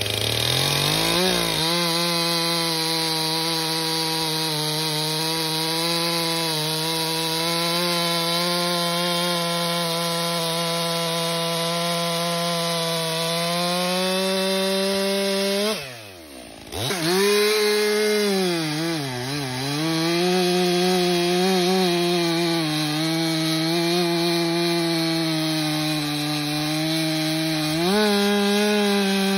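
Stihl MS 400 C two-stroke chainsaw running at high revs while cutting through logs, a new saw in its break-in period. The pitch holds steady at first. After a brief drop about halfway, it wavers and dips as the long bar is pressed into the wood, then picks up again near the end.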